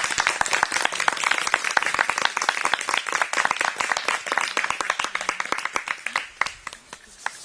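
A small group applauding by hand, dense clapping that thins out and dies away about six and a half seconds in.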